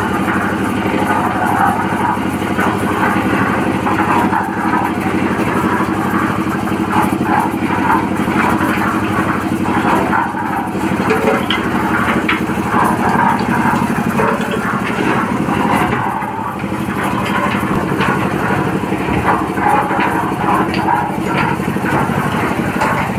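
Engine-driven concrete mixer running steadily: an even engine drone with irregular rattling over it.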